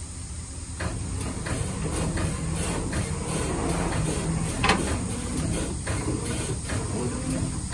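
Tow truck engine running steadily, with scattered knocks and clanks from the chain and timber skids, the loudest a bit after halfway.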